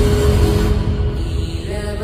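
Background music: held, sustained tones over a steady heavy bass.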